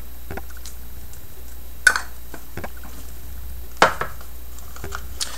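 Stirring a thick paint-medium mix in a small cup with a wooden craft stick: a few light clicks and knocks of stick against cup, two of them sharper, about two seconds in and just before four seconds.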